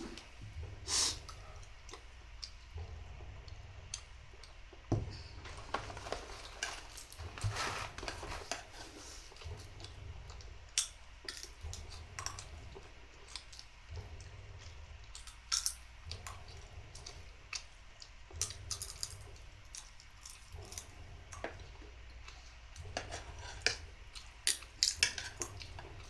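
Someone eating off a plate: a spoon clinks and scrapes at scattered moments, with chewing, over a steady low hum.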